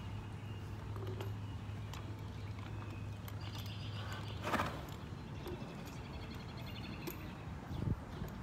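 A steady low hum that fades out about halfway through, with faint bird chirps, one short loud noisy burst about halfway through, and a low thump near the end.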